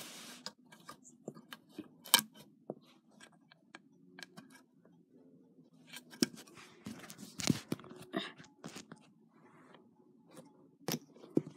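Plastic clicking and rattling of Lego minifigures being picked off a Lego baseplate and handled: many sharp, irregular clicks with brief rustles between them.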